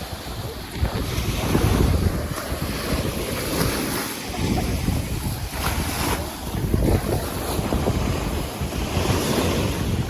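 Wind buffeting the microphone over sea water washing and splashing, a fluctuating rumble that swells and drops.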